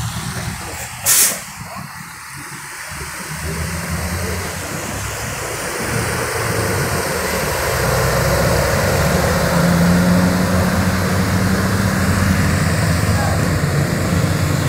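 Heavy diesel engine of a UD Quester truck pulling a loaded crane trailer, running steadily and growing louder over the first several seconds. A short, sharp hiss comes about a second in.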